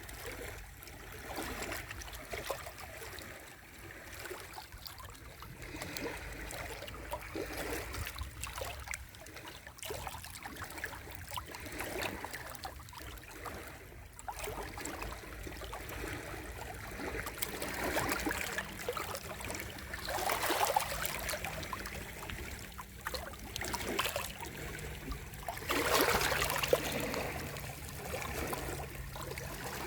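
Sea waves washing onto the shore, the water swishing and trickling back between swells. Louder waves break about two-thirds of the way in and again near the end.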